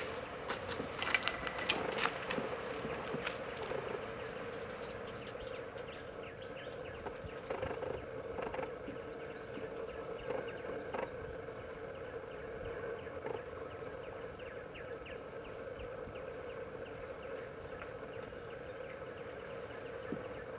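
A flock of spot-billed pelicans splashing down onto water, with wing flaps and splashes in the first few seconds, over a steady hum and scattered faint ticking of wetland ambience.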